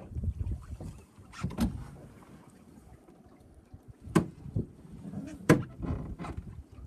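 Lake water lapping and slapping against a small boat's hull, with three sharp knocks: one early, one about four seconds in and one a second later.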